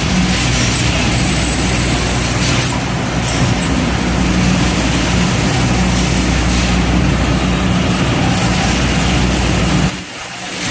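A 12,000-bottle-per-hour water bottling line running: steady machine noise from the conveyors and their drive motors, with a low hum and a few light clicks. The level drops briefly near the end.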